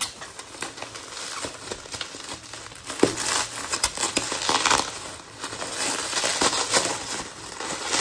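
Plastic bubble wrap crinkling and crackling as it is handled and unwrapped, a dense run of irregular small clicks and rustles, with a sharper crack about three seconds in.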